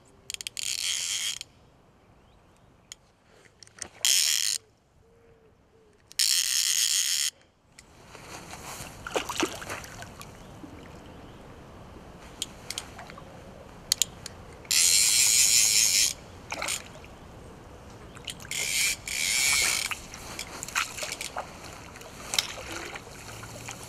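Fly reel's click-and-pawl ratchet buzzing in about five bursts of a second or so, as a hooked carp pulls line off the spool.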